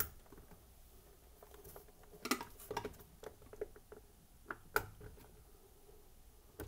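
Scattered small plastic clicks and light rustles as the ice maker's wiring plugs are handled and pushed into the freezer door sockets; the sharpest click comes near five seconds in.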